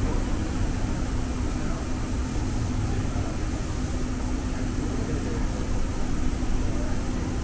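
Cabin noise of a San Francisco Muni Metro light-rail car (Siemens S200 type) riding in the subway tunnel: a steady low rumble with a steady hum held underneath.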